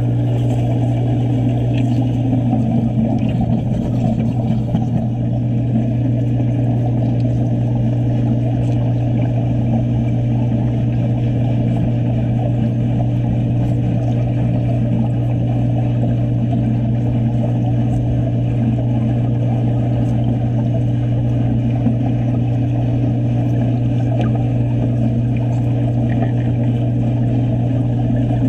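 Steady low machine hum with a continuous rushing noise, unchanging throughout.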